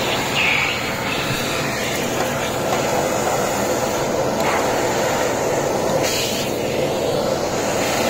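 Philips PowerPro Compact (FC9352/01) 1900 W bagless canister vacuum cleaner running steadily at full suction. Its nozzle is sucking dust and grit out of a sliding-window track.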